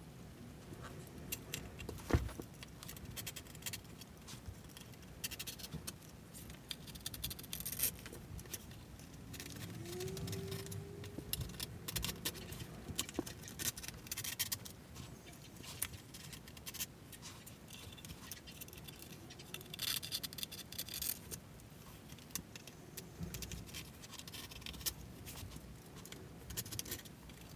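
Knife blade cutting the excess Jessup grip tape away around the edge of a skateboard deck: gritty rasping scrapes in uneven bursts, with one sharp knock about two seconds in.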